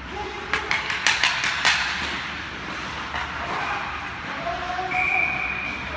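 Ice hockey play: a quick run of sharp clacks of sticks and puck about half a second to two seconds in, over a steady hiss of skates on the ice and the rink. A short held high tone sounds about five seconds in.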